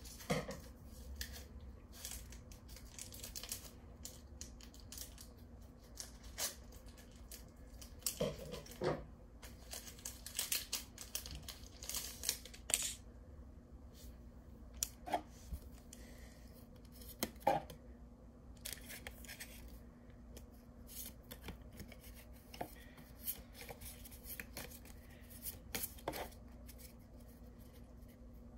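Pokémon trading cards and booster-pack wrappers being handled: faint, irregular short scraping and sliding strokes with scattered clicks and some tearing. Near the end, cards slide against one another as they are flipped through.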